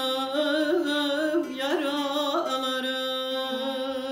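A woman singing a long, wordless held note in a Turkish folk song, to bağlama accompaniment. The pitch wavers and turns in ornaments for the first two and a half seconds, then settles into a steady tone.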